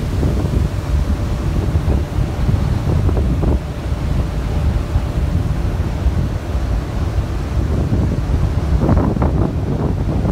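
Wind buffeting the microphone of a boat under way, a steady low rumble, with water splashing against the hull, more often near the end.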